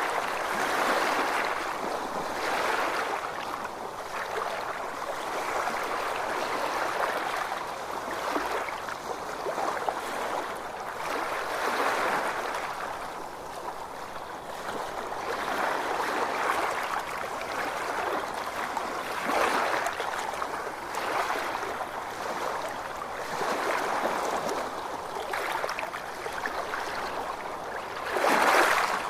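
Ocean waves washing ashore: a continuous rush of water that swells and falls back every few seconds, with the biggest surge near the end.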